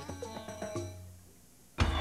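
Television show jingle: pitched synth notes with light wood-block-like percussion, fading out over a second and a half. Near the end, loud theme music with drum hits starts abruptly.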